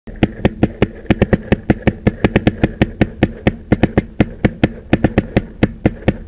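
Rapid paintball marker fire: sharp cracking shots, about six a second and unevenly spaced.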